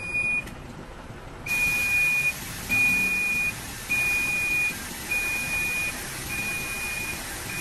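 Truck's electronic warning beeper giving one short high beep, then from about a second and a half in a steady high beep about once a second, five or six times. A steady hiss comes in with the repeated beeping.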